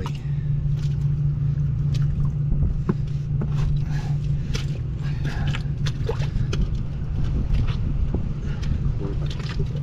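Diesel engine of a piece of heavy construction equipment running steadily, with scattered short metallic knocks and scrapes from work on the pipe fittings.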